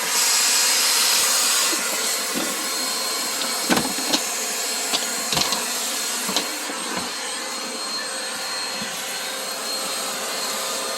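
Household vacuum cleaner running, sucking up a large spider. Its air rush is louder and hissier for the first couple of seconds, then steadier, and a few short knocks come in the middle.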